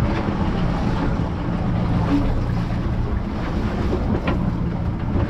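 A small boat's motor running slowly at idle, with wind buffeting the microphone and water washing against the hull.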